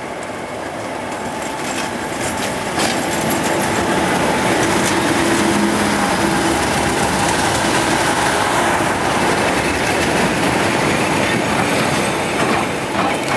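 A diesel locomotive passing close on the adjacent track, its engine note loudest as it draws alongside, then its coaches rushing past on the rails. The sound swells about three seconds in and stays loud until it cuts off suddenly.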